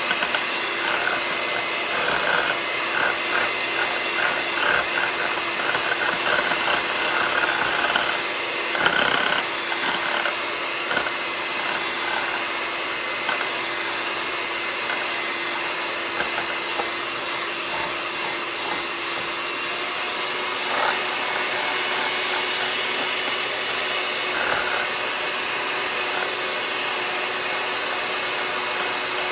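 Electric hand mixer running steadily at one speed, its beaters whipping instant coffee, sugar and hot water in a bowl, with a light rattling over the first ten seconds or so. The mixture is still runny, an early stage of beating whipped coffee.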